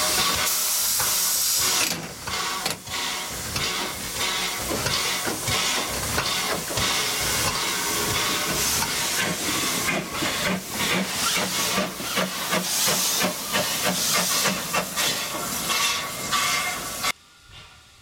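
LBSCR Stroudley Terrier 0-6-0 tank steam locomotive hissing steam for about two seconds, then a long run of uneven exhaust beats and clanks as it works. The sound drops off abruptly near the end.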